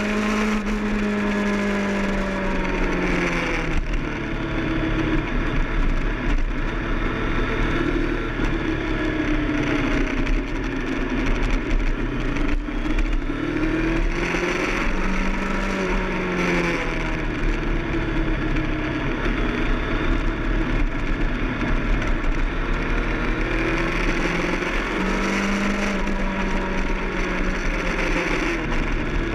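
Kawasaki ZX-10R's inline-four engine at speed on track, its pitch repeatedly rising and falling as it accelerates, shifts and backs off through the corners, under a constant rush of wind noise.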